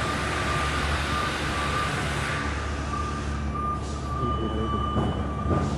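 Rescue helicopter running: a steady high whine over a rushing noise, the upper part of the rush dying down about halfway through.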